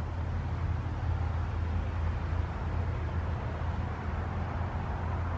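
Steady low outdoor rumble with a faint hiss above it, even throughout with no distinct events.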